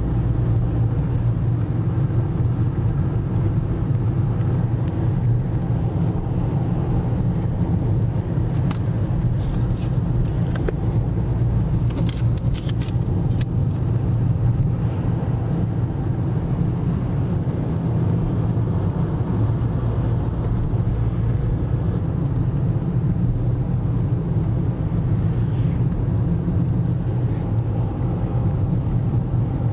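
Steady road and engine noise heard inside a car moving at motorway speed: a constant low rumble with tyre noise. A brief cluster of faint clicks comes about ten to thirteen seconds in.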